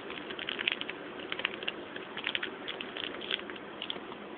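Cookie packaging crinkling as it is handled: irregular clusters of short crackles over a steady hiss.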